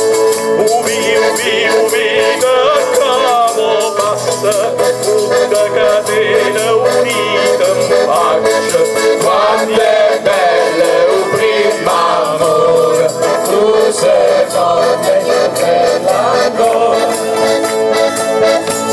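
Men singing a Barese dialect folk song together over a steady instrumental accompaniment, with rattling percussion keeping a quick beat.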